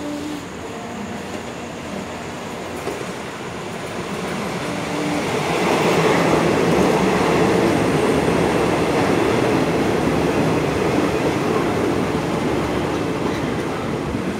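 Diesel railcar train approaching and passing close by, its engines and wheels on the rails growing louder to a peak about six seconds in, then slowly fading as it moves away.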